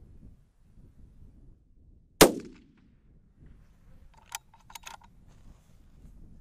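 A single shot from a Tikka T3x bolt-action rifle in .243 Winchester about two seconds in, sharp and loud with a short rumbling tail. A few quick metallic clicks follow about two seconds later.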